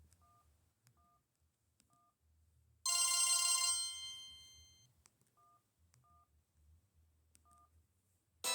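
Samsung SGH-A707 phone's speaker playing a short, bright bell-like tone about three seconds in that rings out over about a second and a half. Very faint two-note beeps come several times around it, and a new ringtone starts right at the end.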